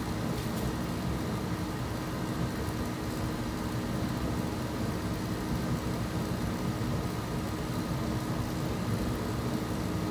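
Master MH-80-OFR 80,000 BTU kerosene/diesel radiant heater running steadily: a constant rushing burner with a fan hum. It is firing with more flame than the owner would like, which he thinks may be because it is burning diesel rather than kerosene.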